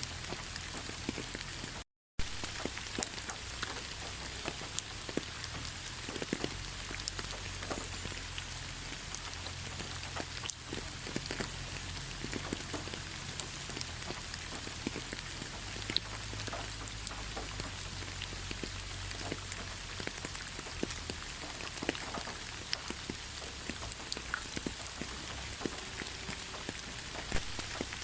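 Steady gentle rain, with fine individual drops pattering over a continuous hiss and a low rumble underneath. The sound cuts out completely for a moment about two seconds in, then resumes unchanged.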